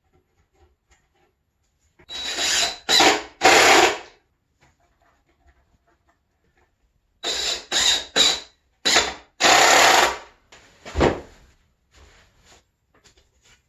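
Power drill driving screws in short trigger bursts, three quick runs, a pause, then about five more, the last one longest, as the legs are screwed onto the base. A single dull knock follows near the end.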